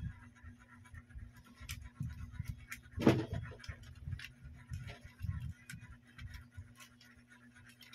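Hands handling a plastic camera tripod head and phone holder: scattered small clicks and scrapes, with one louder knock about three seconds in.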